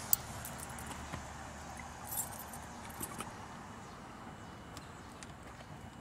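A bunch of keys jingling in a few short bursts of light metallic clinks, with a sharp click at the start.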